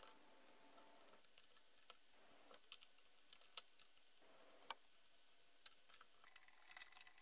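Near silence with faint, scattered clicks and taps of small chainsaw parts being handled and fitted on the plastic housing, a few more of them close together near the end.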